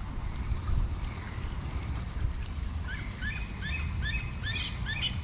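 Bald eagle calling: a rapid series of short, high chirping notes, about three a second, starting about three seconds in, over a steady low background rumble.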